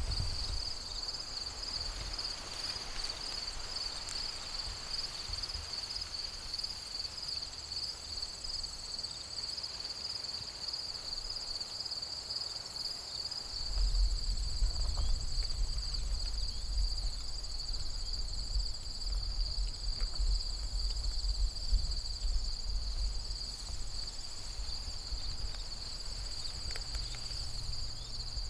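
Steady chorus of field insects, a continuous pulsing high trill. From about halfway through, a low rumble joins in underneath and becomes the loudest sound.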